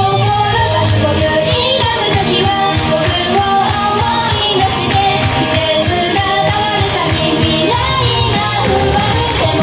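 Upbeat idol pop song played loud through a PA, a woman's lead vocal sung into a handheld microphone over a backing track with a steady drum beat.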